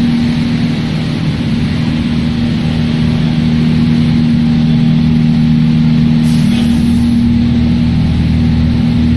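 Industrial machinery running with a loud, steady low drone and hum. About six seconds in, one hum tone drops out and a short high hiss sounds for about a second.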